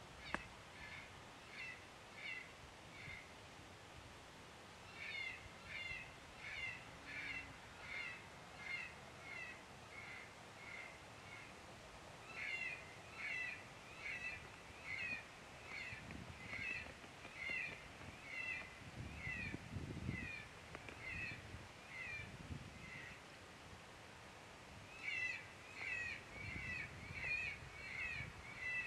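Electronic predator caller playing a squeaky animal distress sound: short high calls repeated about one and a half times a second in long runs with brief pauses. Low wind rumble on the microphone comes and goes.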